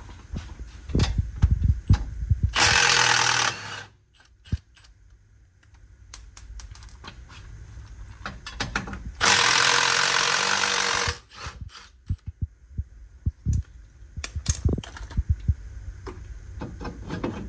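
Cordless impact wrench hammering out the 15 mm front-bumper bolts in two runs: a short one about three seconds in and a longer one of about two seconds around nine seconds in. Between runs, the tool and loose metal parts clank and click.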